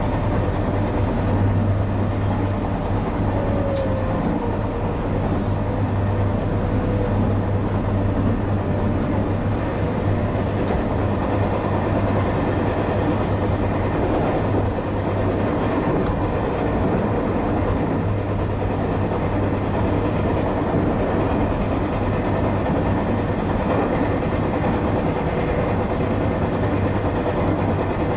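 JR West 221 series electric train running at speed: steady rumble of wheels on rail with a constant low hum.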